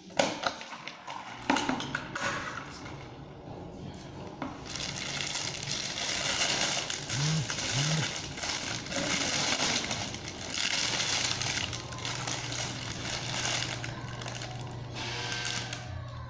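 Paper burger wrapper rustling and crinkling as it is handled and opened, a dense crackle lasting most of ten seconds after a few scattered clicks, over a faint steady low hum.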